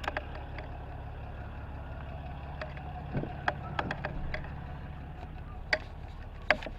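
Truck running with a steady low rumble, and scattered light clicks and knocks over it, loudest near the end.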